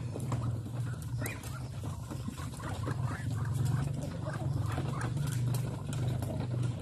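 A flock of Muscovy ducks and chickens feeding from a concrete trough: many quick clicks of bills pecking at the feed, with short calls from the birds, over a steady low rumble.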